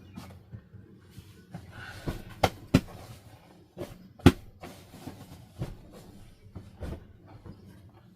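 A series of sharp knocks and clacks, as of objects being handled and set down, the loudest three close together between two and four and a half seconds in, over a steady low hum.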